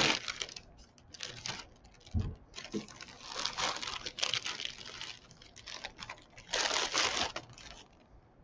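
Rustling and crinkling of wrapping as a lump of potter's clay kept in a towel is fetched and unwrapped, in uneven bursts with a low thump about two seconds in.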